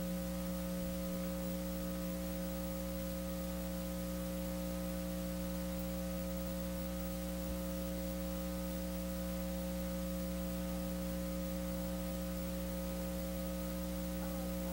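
Steady electrical mains hum, a buzzy chord of several fixed tones, over a layer of hiss on the recording's audio track, with nothing else happening.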